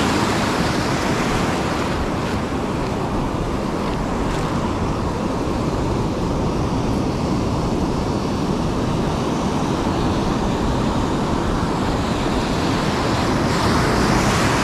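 Ocean surf breaking and washing up the beach close by, a loud steady rush that swells again near the end.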